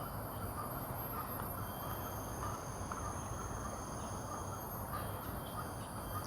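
Outdoor background: a steady hiss with faint, short bird calls repeating throughout, and a few faint steady high-pitched tones.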